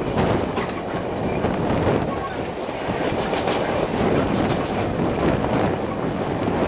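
Narrow-gauge train running at speed behind a Px48 steam locomotive, heard from the carriage: a steady rolling noise with the clickety-clack of the wheels over the rail joints.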